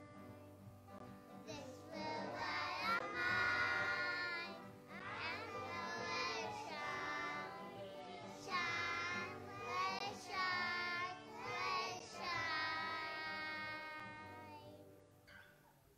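Young children singing a song together in phrases, accompanied by piano and guitar; the singing fades out near the end.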